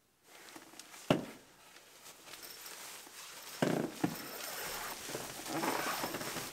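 Rustling of a nylon sleeping bag as a person stirs, stretches and sits up on a camp cot, with a few sharp knocks.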